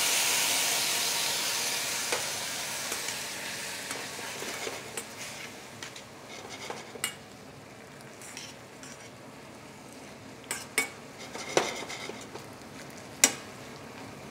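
Balsamic vinegar sizzling in a hot stainless steel pan of sautéed shallots and cranberries as it is deglazed, the loud hiss dying down over the first few seconds to a quiet simmer. Later a metal spoon stirring and clinking against the pan several times.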